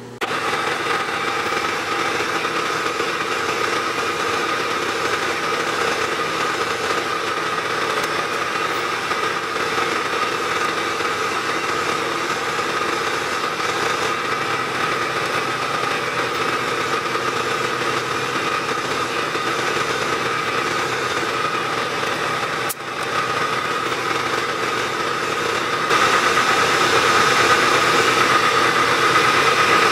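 Milling machine spindle running while a twist drill bores holes in a metal workpiece, played back sped up five times. There is a brief dip about 23 seconds in, and it gets louder near the end.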